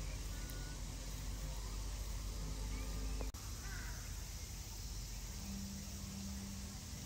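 Steady low outdoor background rumble with a few faint, short bird calls; the rumble changes abruptly about three seconds in, and a low steady hum joins about five seconds in.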